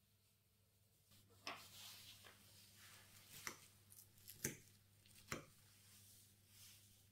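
Fork clicking against a plate as food is picked up: four sharp clicks spread over a few seconds, the loudest about two-thirds of the way through, over faint room tone.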